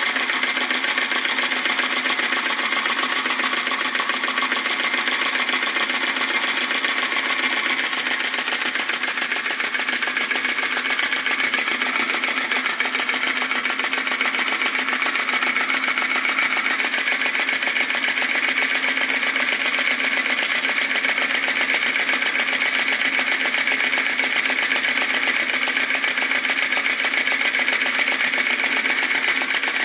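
Retrol VE-01 crossbeam vacuum engine (a flame licker, burning methylated spirits) running at speed: a fast, even mechanical clatter from its piston, flame valve and beam linkage, holding steady throughout.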